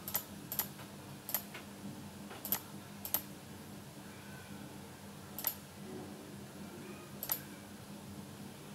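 Computer mouse clicking: about seven sharp, separate clicks at irregular intervals over a faint steady hum, as colours are picked on screen.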